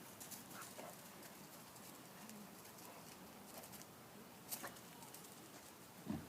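Near silence, with a single faint click about four and a half seconds in and a brief low thump just before the end.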